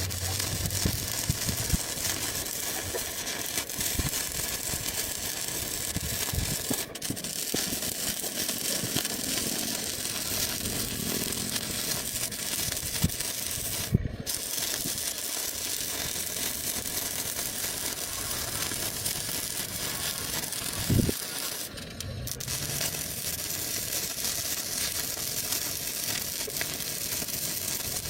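Electric arc welding crackling steadily as weld is laid into a gap in metal; the crackle breaks off for a moment a couple of times.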